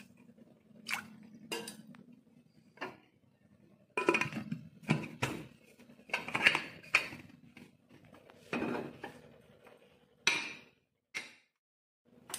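Aluminium Butterfly pressure cooker being handled: a few light clicks, then a run of metal clinks and clatters as the lid is fitted and locked onto the pot, and a last sharp knock as the cooker is handled on the gas hob.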